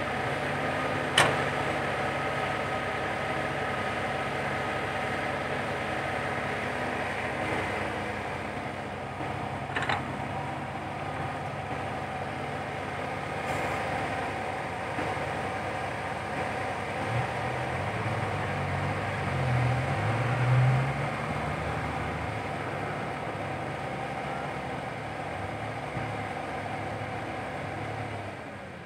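Komatsu PC120-5 hydraulic excavator's diesel engine running under working load as the machine digs and swings, with a sharp knock about a second in and another near ten seconds. The engine's low rumble grows louder for a few seconds past the middle.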